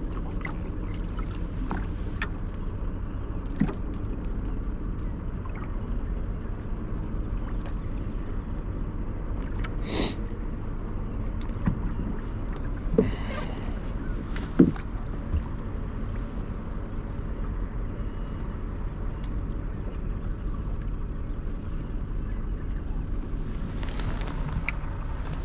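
Steady low rumble aboard a small aluminium fishing boat, with a faint steady hum and a few short sharp knocks, the loudest about two thirds of the way through.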